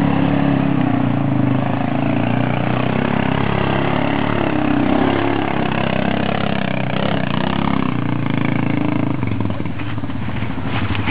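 ATV (quad bike) engine running under load as it climbs a steep slope, steady for most of the time and fading after about nine seconds. A few sharp clicks come near the end.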